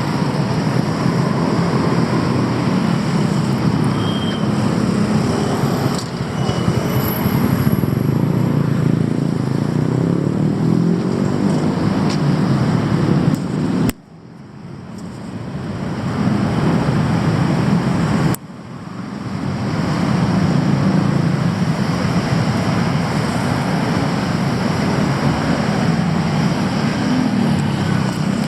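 Steady city street traffic noise with the hum of passing car and motorbike engines. About halfway through, the sound abruptly drops out twice, a few seconds apart, and each time swells back over a couple of seconds.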